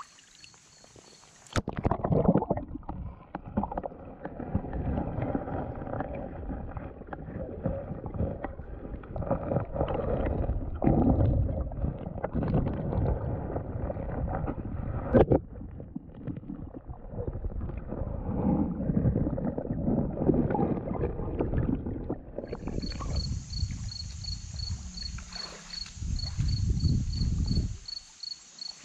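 Stream water rushing and bubbling, heard muffled through a camera held underwater, with a sharp knock about halfway through. Near the end the sound is back above water: crickets chirping steadily over the flow of the stream.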